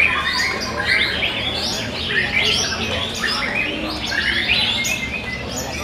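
Young white-rumped shamas (murai batu) singing in a song contest: a fast, unbroken stream of varied whistled and chattering phrases, several songs overlapping, over a steady low hum.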